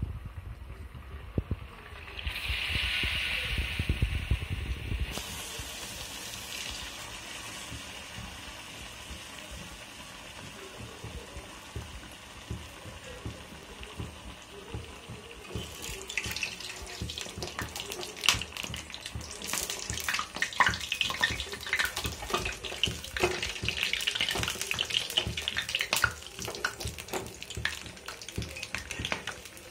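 Battered potato patties deep-frying in hot oil in a steel kadai. After a dense low rumble in the first few seconds and a steady hiss, the oil starts sizzling with many sharp crackles about halfway through, and they continue to the end.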